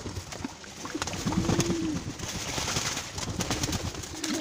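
Domestic pigeons cooing, a few low coos with the clearest about a second and a half in, over light splashing from birds bathing in a tub of water.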